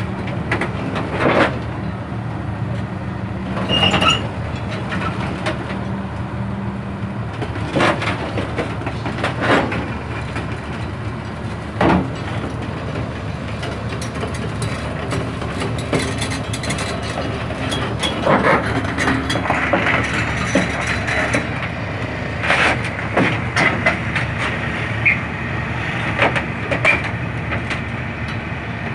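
Excavator's diesel engine running steadily under irregular metal clanks and knocks from its steel crawler tracks. High squeaks join in over the second half.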